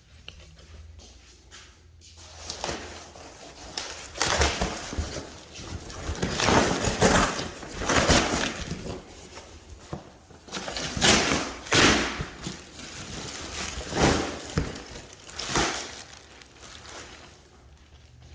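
Handling noise from unpacking a new heavy bag: repeated rustling and scraping swells of packaging and the bag being moved about, with a few short knocks in between.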